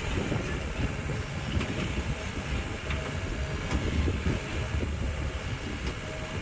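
Mini excavator engine running steadily under work, with a few faint clicks over it.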